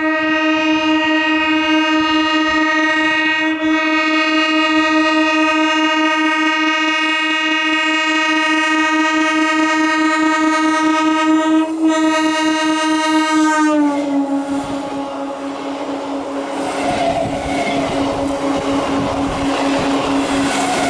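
Eastern Railway EMU local train sounding its horn in one long unbroken blast as it comes round the curve. The horn drops in pitch about two-thirds of the way through as the front passes, and it keeps sounding lower while the wheels rumble and clatter under the passing coaches.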